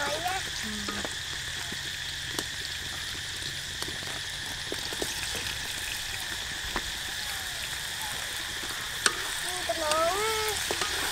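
Food frying in hot oil: a steady sizzling hiss with scattered sharp pops.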